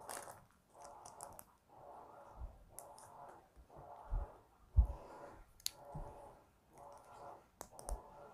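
Small plastic minifigure parts clicking and tapping as they are handled and fitted together by hand, over a soft rhythmic breathing sound that repeats a little faster than once a second. A low thump about five seconds in is the loudest sound.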